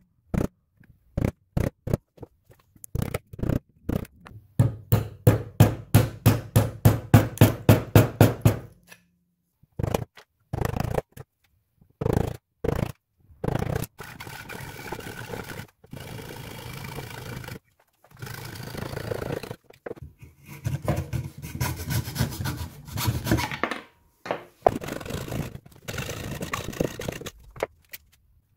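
A chisel being driven into a wooden blank with sharp mallet blows that speed up to about four a second, then, after a short pause, a framed hand saw cutting through the wood with rasping back-and-forth strokes.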